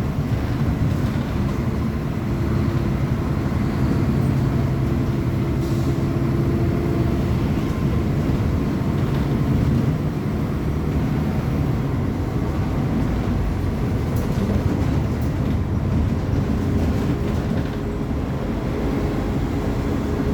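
Diesel engine of a Mercedes-Benz O500UA articulated bus running, a continuous loud drone whose engine tones shift partway through.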